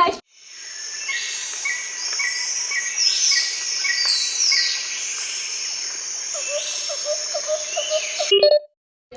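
Dense chorus of bird calls and insect-like chirping: quick repeated chirps and falling high whistles. It fades in at the start and cuts off abruptly near the end.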